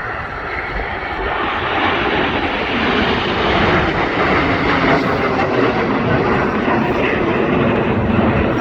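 Jet aircraft flying over in a display, a broad roar that builds over the first few seconds and then holds loud.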